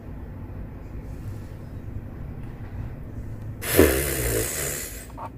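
A person's loud, breathy sighing exhale a little over halfway in, over a steady low rumble.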